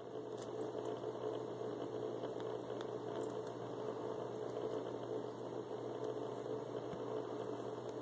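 Steady low mechanical hum with a faint rushing noise over it and a few faint ticks.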